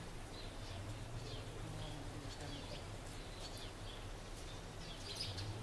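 Small birds chirping outdoors: scattered short, high chirps over a low steady hum, with louder calls starting near the end.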